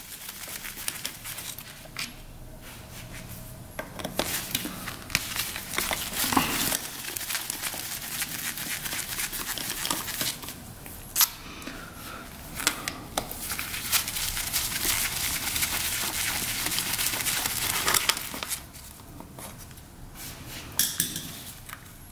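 Hand tools and small metal engine parts being handled as a cover is taken off a two-stroke dirt bike engine. It is a run of rustling and scraping with sharp clicks and clinks now and then.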